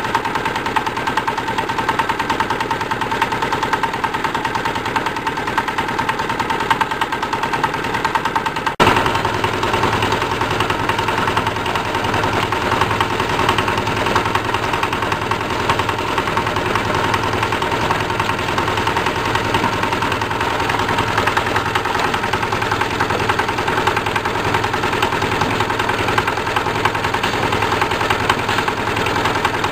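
Tuber washing machine running: its drive engine and turning perforated stainless-steel drum with rotary brushes make a steady mechanical din, and water sprays over the tubers. The sound changes abruptly about nine seconds in, with a stronger low hum afterwards.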